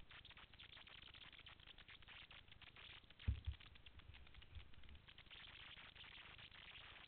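Faint crackly hiss with a few dull low thumps, the loudest about three seconds in: wind and handling noise on the microphone. No engine is heard.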